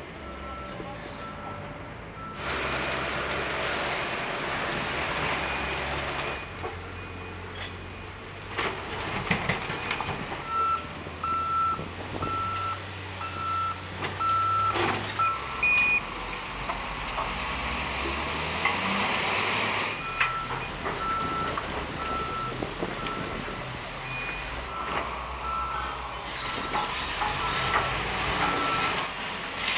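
Heavy diesel demolition machinery running, with a reversing alarm beeping at an even pace, a little under a second apart, in several stretches. Now and then rubble crashes and clatters as it is moved.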